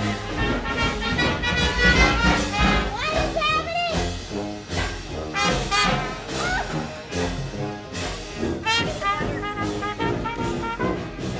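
Upbeat brass-led music, trombone and trumpet over a rhythmic backing, with voices mixed in.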